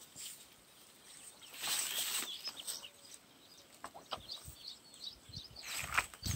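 Rustling of a thin plastic bag and grass as a caught catfish is handled into the bag, in two spells, with a few small knocks between them. Faint bird chirps in the background.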